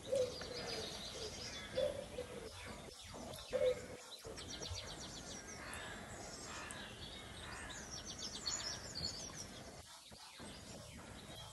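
Background birdsong: small birds chirping with quick high trills, with short low cooing notes in the first few seconds.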